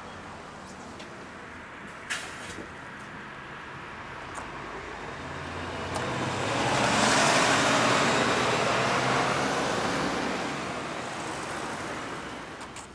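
Red city bus driving past close by. Its engine and tyre noise swell to a peak about seven seconds in and then fade.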